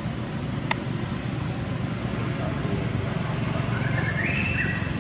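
Steady low background rumble, with a sharp click a little under a second in and a short pitched sound rising in steps near the end.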